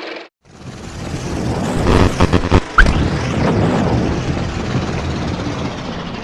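Horror sound effect: a deep rumble swells in, peaks in a cluster of heavy booming thuds about two to three seconds in, then slowly fades. Just before the rumble, a steady hum cuts off abruptly.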